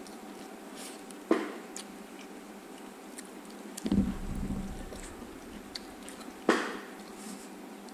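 Close-up eating sounds: wooden chopsticks clack sharply against a foam takeout box twice, and about four seconds in there is a soft, dull bite with chewing of a piece of braised food.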